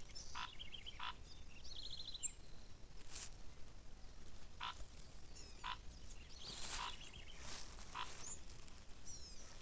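Frogs calling at a pond filled by rain: short, separate calls scattered every second or so, with a few quick rattling trills among them.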